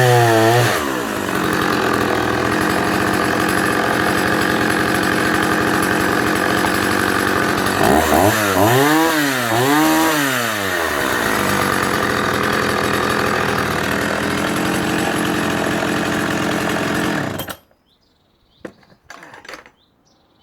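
1975 Partner F55 55cc two-stroke chainsaw at full throttle cutting through a log about 14 inches across, its engine note pulling down under load. Around the middle the engine revs up and down twice, and a few seconds before the end the sound stops abruptly.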